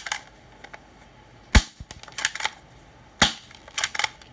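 A toy spring-powered alloy BB pistol fired three times, about one and a half seconds apart. Each shot is a sharp snap followed by a few lighter clicks.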